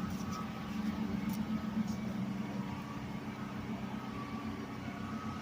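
An engine running steadily at idle, a constant low hum with a faint high whine above it.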